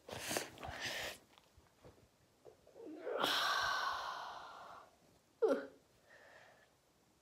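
A person's breathy, wordless vocal sounds: a long hissing breath about three seconds in, then a short squeak that falls in pitch.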